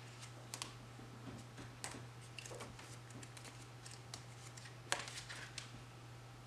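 Pages of a paper sticker book being flipped and handled: soft rustles and light crisp clicks, with a sharper paper snap about five seconds in, over a steady low hum.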